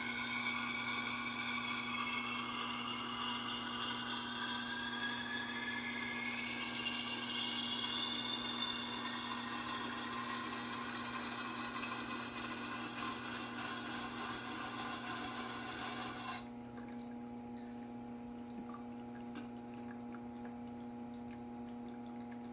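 Santoku's high-carbon German steel edge being ground on a sharpener: a continuous grinding hiss whose pitch slowly shifts as the blade moves along. It cuts off abruptly about three quarters of the way through, leaving a steady low hum.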